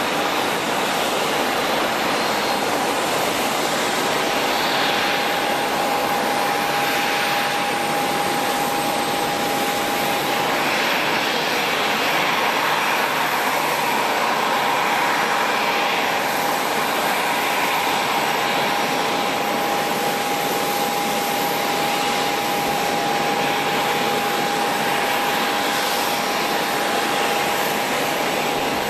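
Jet airliner engines running steadily: an even rushing noise with a single held whine through it.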